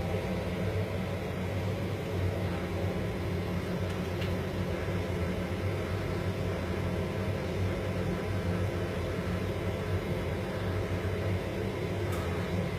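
TIG welding arc and welding machine running, a steady electrical buzz with a low hum.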